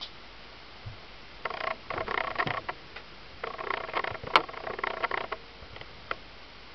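Pen scratching across a playing card as a signature is written on it, in two bursts of quick strokes, with one sharp click partway through the second burst.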